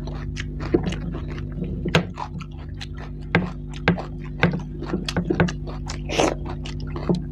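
Close-miked eating by hand: wet chewing, lip smacks and mouth clicks, with fingers scraping rice across a plastic tray. A steady low hum runs underneath.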